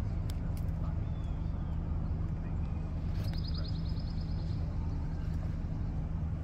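Steady low mechanical hum, with a short high rapid trill of about a dozen quick notes about three seconds in.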